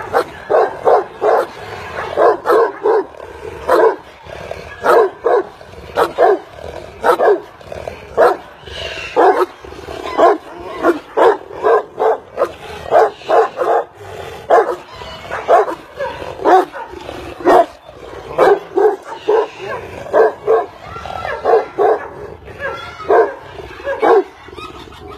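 Large livestock guardian dogs barking over and over, about two barks a second in uneven runs, with short gaps between the runs.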